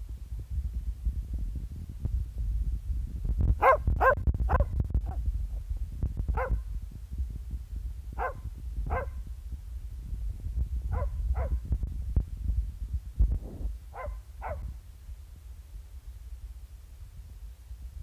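Border terrier giving friendly barks: a quick run of four barks about three and a half seconds in, then pairs of barks a few seconds apart. A steady low rumble runs underneath.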